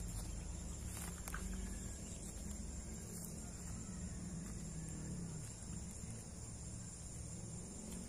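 Insects droning steadily in one thin high tone, with a couple of faint clicks about a second in.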